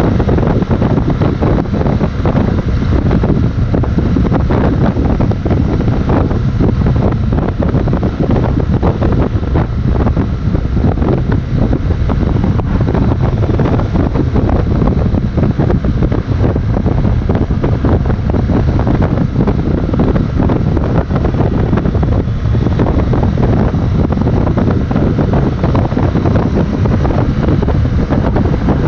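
Steady wind rushing over the microphone of a BMW R 1200 GS motorcycle riding at speed, a dense low roar that covers the motorcycle's own sound.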